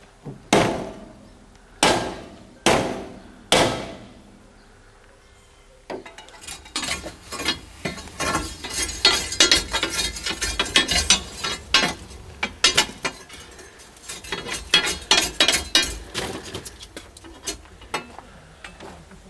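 Four loud, ringing metal clangs from a shovel working at a steam locomotive's smokebox, then a long irregular clatter and rattle as fire irons rake the firebox and hot clinker and ash drop through onto the track bed below.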